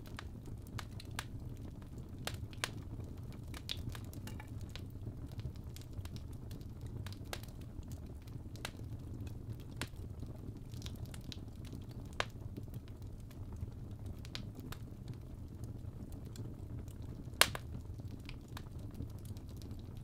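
Fire crackling in a fireplace: scattered sharp pops and snaps over a low steady rumble, with one louder pop near the end.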